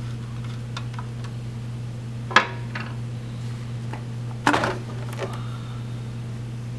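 Hard plastic knocks and a brief clatter as a supercharger intake tube with its air filter is worked loose and pulled off, two sharp knocks standing out, about two and a half and four and a half seconds in, with small ticks between, over a steady low hum.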